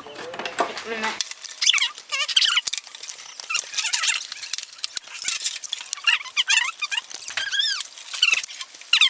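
Rapid high-pitched squeaky chirps and glides with scattered clicks, the sound of sped-up audio, after a moment of normal speech.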